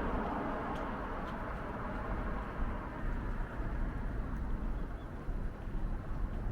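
City street traffic noise: a passing vehicle fades away over the first two seconds, leaving a steady low rumble.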